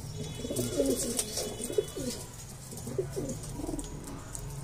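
Domestic pigeons cooing, many low coos from the flock overlapping without a break.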